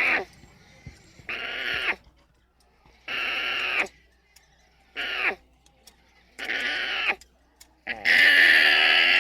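Alpaca giving a series of about six high-pitched calls, each under a second to about a second long with short pauses between, two of them brief with a falling pitch; the last one, near the end, is the longest and loudest.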